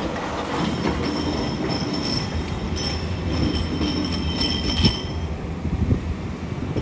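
A SANY SY500H 50-ton excavator running under load, its diesel engine a steady low rumble, with high-pitched metallic squeals that come and go and a sharp clank about five seconds in.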